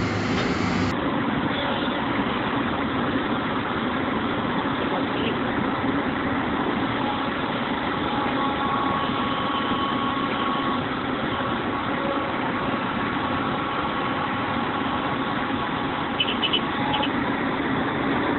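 A heavy machine's engine idling steadily, with a few quick clicks near the end.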